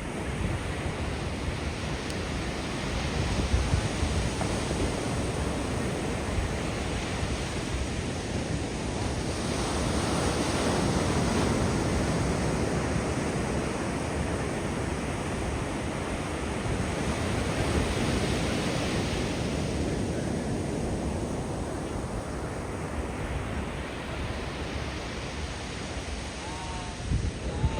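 Ocean surf breaking on a beach: a steady rush that swells as larger waves come in, about ten seconds in and again a little later, with some wind on the microphone.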